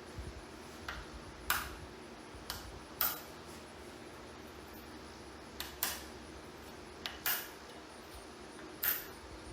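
Steel coin blanks clinking as they are handled: about nine short metallic clicks, some in quick pairs, over a faint steady hum.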